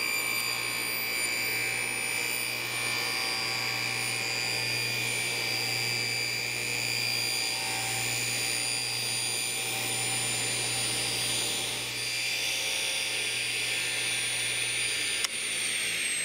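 Delta 36-725 table saw running steadily with a high whine while its blade is raised up through a new MDF zero-clearance insert, cutting the blade slot. Near the end there is a click, and the whine starts falling in pitch as the blade begins to spin down.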